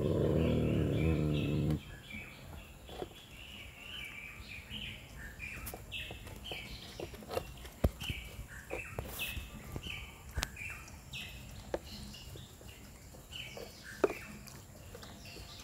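Dogs eating from a plastic tub: a low dog growl over the food for the first couple of seconds, which stops abruptly, then scattered sharp clicks and knocks of muzzles and teeth in the tub, the loudest about eight and fourteen seconds in. A bird chirps over and over in the background.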